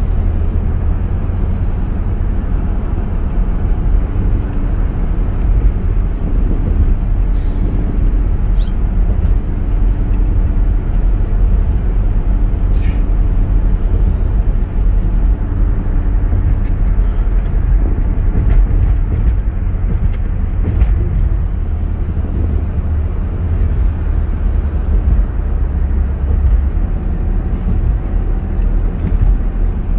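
Steady low rumble of a car driving at highway speed, heard from inside the cabin: road and engine noise that runs on without a break.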